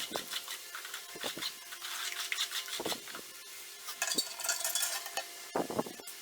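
Irregular scraping and clinking of hand work: a tool scraping and knocking against a hard container or surface in uneven strokes, with a faint steady hum underneath.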